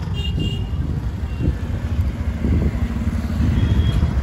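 Riding a motorcycle along a busy road: a steady low rumble of the engine and wind on the microphone, with traffic around it. There is a short high beep about a quarter-second in.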